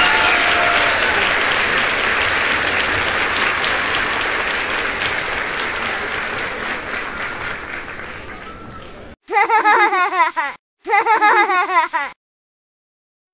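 Crowd applauding, fading out slowly over about nine seconds before cutting off abruptly. Two short phrases of a voice follow, each about a second long.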